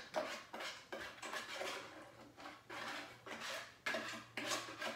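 Kitchen utensil scraping batter out of a mixing bowl in repeated short strokes, about two to three a second, with a faint steady hum beneath.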